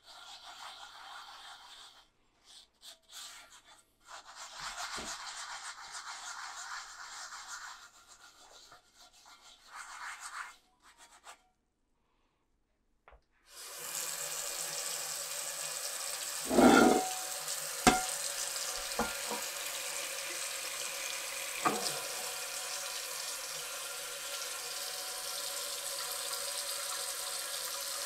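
The abrasive side of a sponge scrubbing salt and a little soap around a Lodge cast iron skillet, in short strokes that stop and start. After a brief pause a kitchen tap runs steadily onto the pan, with one loud knock a few seconds in and a few lighter knocks after it.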